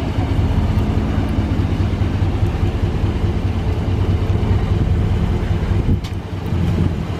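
Ram pickup truck's engine running with a steady low hum as the truck creeps slowly forward at low speed.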